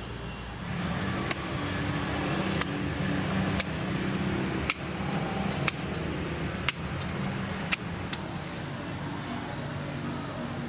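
A steady workshop machine hum, with sharp metallic clicks or taps about once a second.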